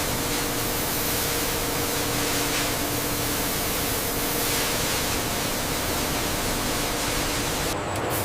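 Steady, even hiss of rushing noise, with a faint steady hum underneath; the hiss changes briefly shortly before the end.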